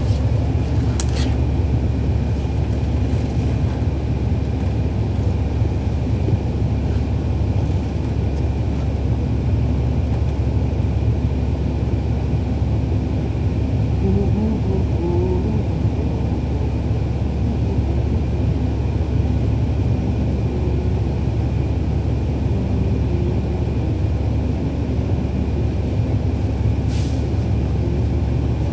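Cummins ISL9 diesel engine of a 2011 NABI 40-foot transit bus running, heard from inside the bus: a steady low rumble, with a couple of brief clicks.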